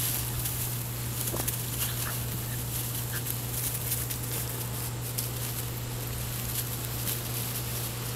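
Six-week-old German Shorthaired Pointer puppies wrestling on straw: a few brief, faint squeaks in the first few seconds over light rustling of straw.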